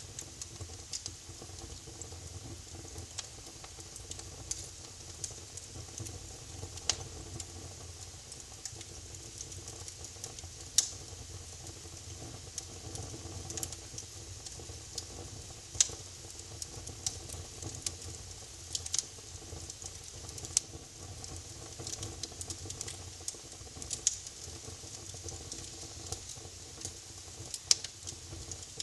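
Wood fire crackling in a fireplace: irregular sharp pops and snaps, a few of them louder, over a steady low rumble and hiss.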